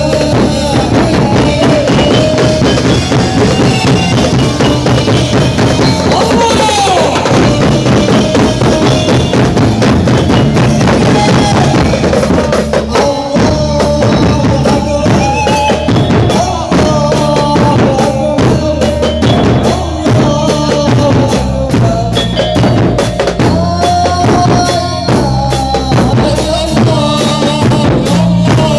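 Music with a steady drum beat and bass drum under a melody line.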